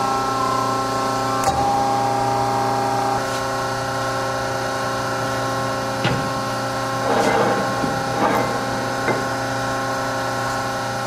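Hyd-Mech S-25P hydraulic horizontal band saw running without cutting, a steady hum from the machine with its blade free of the work. A few short knocks and rattles come in the second half.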